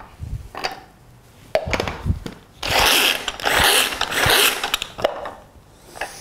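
Rösle Multicut pull-cord hand chopper being worked: three quick rasping pulls near the middle, with clicks and knocks of its plastic jar and lid before and after.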